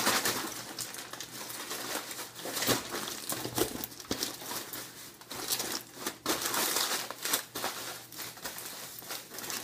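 Aluminium foil crinkling and crumpling in irregular bursts as it is pressed and moulded by hand around a head.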